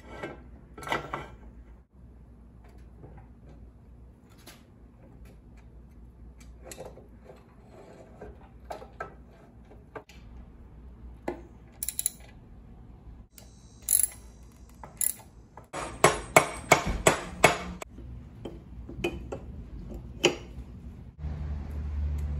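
Cast-iron parts of a Delta 37-290 4-inch jointer clinking and knocking as they are reassembled with hand tools, including a quick run of clicks, about five a second, a little past halfway. A steady low hum comes in near the end.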